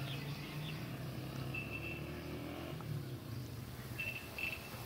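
Distant Honda motorcycle engine running, a low steady hum that eases off about four seconds in. A high chirping comes in briefly and repeats near the end.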